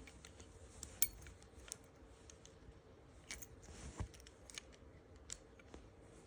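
Small metallic clicks and ticks of a key working a Kwikset door knob lock, going into the cylinder and turning it. The clicks are irregular, the loudest about a second in.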